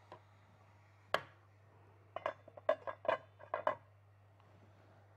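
Metal utensil knocking and clinking against a frying pan on the stove: one sharp knock about a second in, then a quick run of about six ringing clinks.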